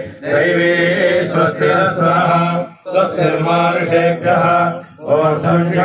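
A man chanting Sanskrit mantras into a microphone in a near-monotone, steady pitch, in three phrases broken by short pauses, as a closing benediction after the talk.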